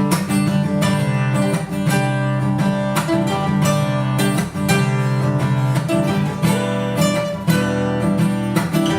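Acoustic guitar strumming chords in a steady rhythm, an instrumental passage of a song.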